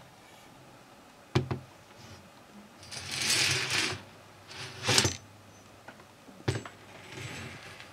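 Small plastic board-game pieces knocked and scattered across a game board: three sharp knocks, with stretches of rattling between them.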